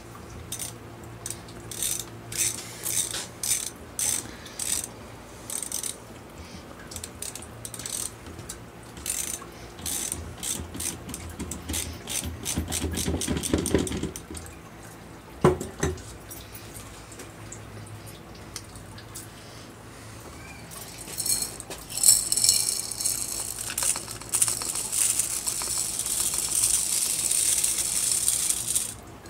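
Rapid light clicks and clinks of filter fittings and tools being handled and tightened, with a single sharp knock about halfway through. A steady high hiss fills the last several seconds.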